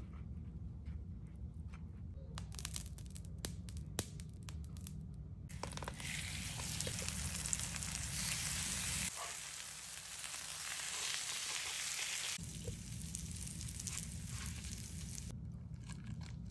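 Sesame-and-flour-coated trout fillets frying in oil on a flat griddle, a steady sizzle from about five seconds in until near the end. Light clicks and crackles come before the sizzle.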